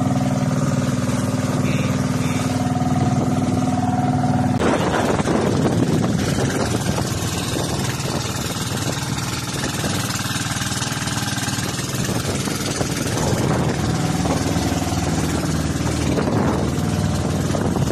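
Engine of a small wooden outrigger fishing boat running steadily. About four and a half seconds in, its even hum gives way to a rougher, noisier sound.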